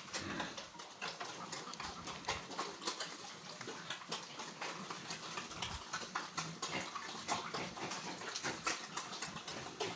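Pig grunting and moving in its concrete pen, with many short, scattered clicks and rustles.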